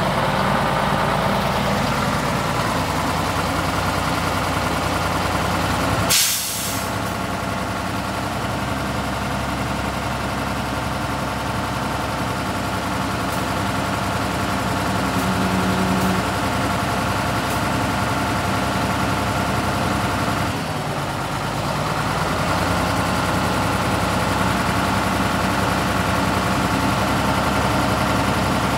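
Scania 113H truck's 11-litre straight-six diesel idling steadily, with one short, loud hiss of released air from the truck's air system about six seconds in.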